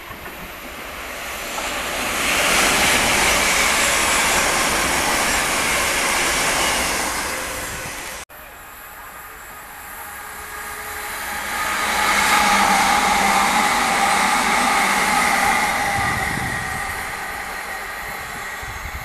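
Two electric multiple-unit trains passing in turn: a London Northwestern class 350 Desiro runs by, its rail noise swelling and then breaking off abruptly about eight seconds in; then a Southern class 377 Electrostar passes, rising to a loud run-by with a steady whine over the wheel noise, and fades near the end.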